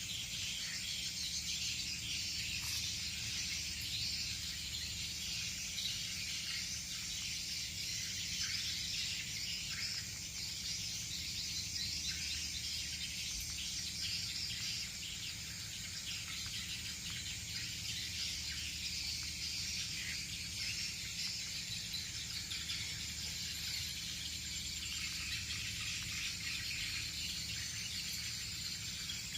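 Steady outdoor ambience of insects chirping, with a low steady hum underneath.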